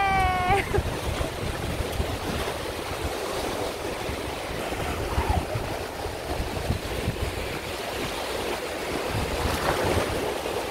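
Sea surf breaking and washing onto a sandy beach, with wind buffeting the microphone as a low rumble. A high voice is held briefly at the very start.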